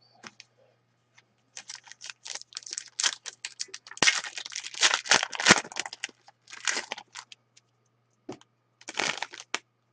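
A foil hockey card pack being torn open and handled: dense crinkling and crackling of the wrapper for several seconds, then two short bursts near the end.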